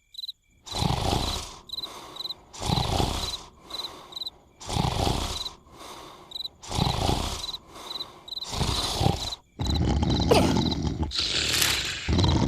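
Cartoon snoring: a loud snore about every two seconds, over crickets chirping steadily. From about ten seconds in the snoring runs on into a longer, denser stretch.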